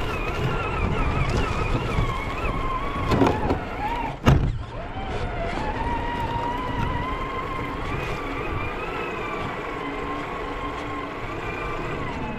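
Traxxas TRX4 RC crawler's electric motor and gears whining, the pitch wavering up and down with the throttle, heard from a camera strapped to the truck over the rumble of the chassis on rough ground. About four seconds in, the whine dips and a single sharp knock sounds, the loudest moment.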